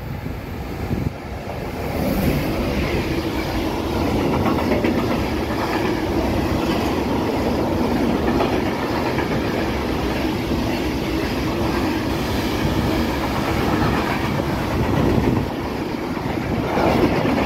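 Freight train of covered freight wagons passing close by along the platform, its wheels rumbling steadily on the rails. The sound swells about two seconds in as the train draws alongside and stays loud and even as the wagons roll past.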